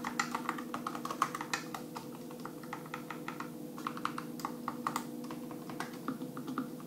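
Typing on an A4Tech Bloody B975 keyboard with optical-mechanical switches: rapid, irregular key clacks in quick runs, with a steady low hum underneath.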